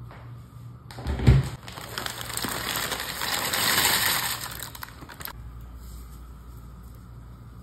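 Dry farfalle (bowtie) pasta poured into a pot of water: a thump about a second in, then a rattling, rustling pour that builds and stops abruptly after about five seconds.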